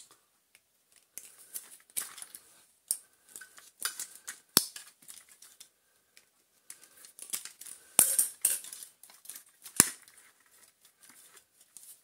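Irregular metallic clicks, clinks and rattles of hand tools and metal motor parts being handled while a vacuum cleaner motor is taken apart, with wires pulled off their spade connectors and the motor housing lifted away. The sharpest clinks come about four and a half, eight and ten seconds in.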